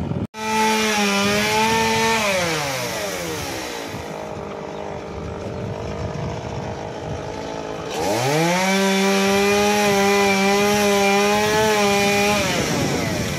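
Chainsaw engine at high revs, dropping to idle for about six seconds, then revved up again for about four seconds before dropping back near the end.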